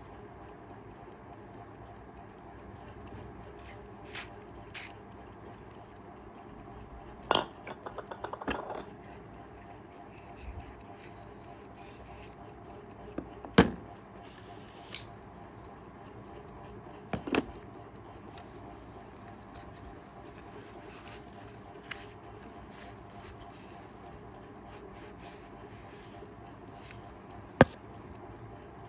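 Kaiser 4 Rubis travel alarm clock movement ticking faintly while metal tools and small clock parts are handled, giving a scatter of sharp clinks and knocks. There is a short rattle about a quarter of the way in, and the loudest knocks come about halfway through and near the end.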